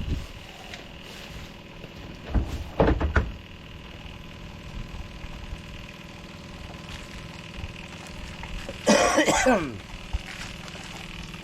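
A man coughing and clearing his throat: a short cluster about two seconds in and a louder one near the end, over a steady faint hum.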